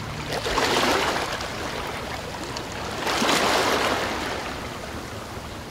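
Water washing and lapping in a harbour, a steady rush of noise that swells up twice.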